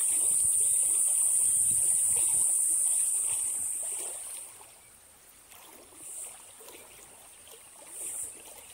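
Tropical insects shrilling in a steady high-pitched drone that fades out about halfway through, then returns in two short bursts, with faint water sounds beneath.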